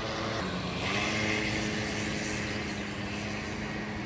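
A road vehicle passing: a steady engine hum with a rush of tyre and air noise that swells about a second in and then slowly fades.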